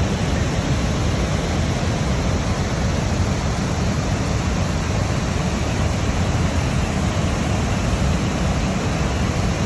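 The steady rush of Niagara Falls, a mass of water pouring over the crest into the gorge, heaviest in the low end.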